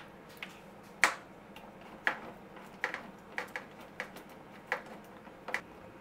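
Sharp plastic clicks and taps, about eight of them at uneven intervals, as a dishwasher's control panel is pressed and fitted onto the top of the door.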